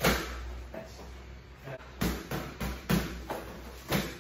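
Kickboxing strikes smacking into a partner's gloves, arms and shin guards as he blocks a punch-and-kick combination: one sharp smack at the start, a quick run of about five strikes about two to three seconds in, and another kick landing near the end.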